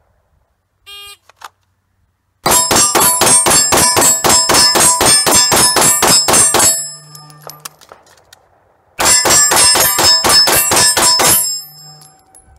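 A shot timer beeps once about a second in, then a handgun fires a fast string of shots at about four a second, each one a hit that rings the steel target. After a pause of about two seconds a second string of about ten more ringing hits follows, with no misses.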